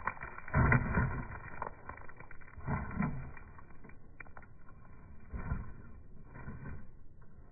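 Losi Baja Rey electric RC truck running, a steady motor whine with thumps and rattles about half a second, three and five and a half seconds in.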